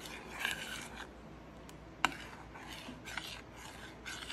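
Metal spoon stirring and scraping around a stainless steel saucepan of melting chocolate icing, with one sharp clink of the spoon on the pan about two seconds in.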